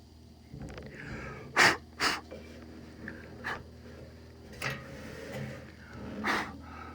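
A person breathing audibly close to the microphone, five short puffs of breath a second or so apart, over a low steady hum.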